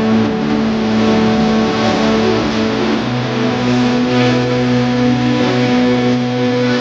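Background music with sustained notes over a low bass line that changes pitch in steps.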